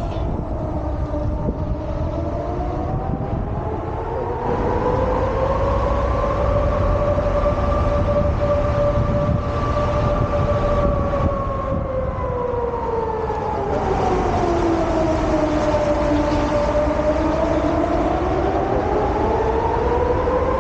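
Civil-defence warning siren wailing during a test of the public warning system, its two tones, one an octave above the other, rising, holding high, falling slowly to a low about three-quarters of the way through and rising again near the end. A steady low rumble runs underneath.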